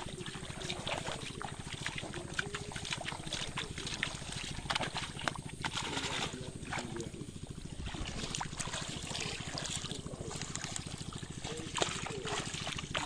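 Water splashing and trickling, with many small sharp splashes and knocks scattered throughout.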